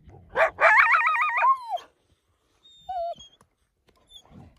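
A dog whining: one long loud whine that warbles up and down several times and then falls away, followed about a second later by a shorter, fainter high whine.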